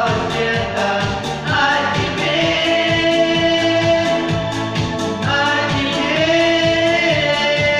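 Vocal duet singing an 1980s Russian pop song in long held notes, over a backing track with a steady bass beat.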